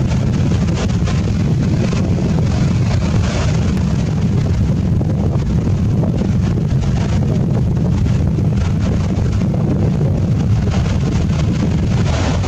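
Wind buffeting the microphone in a steady low rumble, over the wash of breaking ocean surf.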